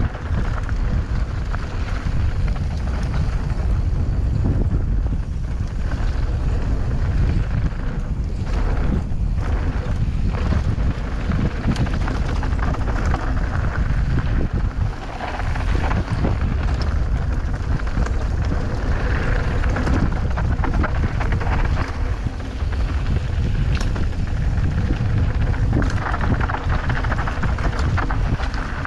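Wind rushing over a mountain bike's action-camera microphone during a fast downhill run, with the tyres rolling over loose dirt and stones and the bike rattling in scattered sharp clicks.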